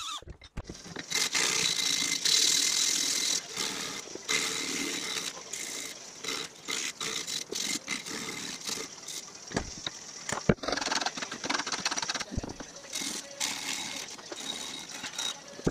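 Strip of abrasive cloth pulled back and forth by hand over the edges of a small metal bracket, shoe-shine style: an uneven, rasping scrape of grit on metal in short irregular strokes.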